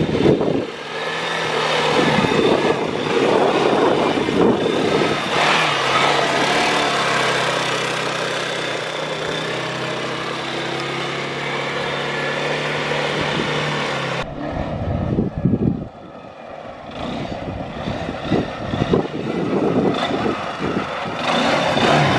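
Access tractor ATV's engine running under riding, with a steady engine note. About two-thirds of the way through the sound changes abruptly to a choppier engine sound broken by short knocks.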